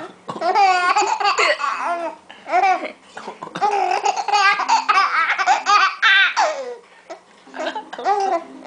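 Six-and-a-half-month-old baby laughing in repeated bursts of high-pitched giggles and squeals, with short pauses in between.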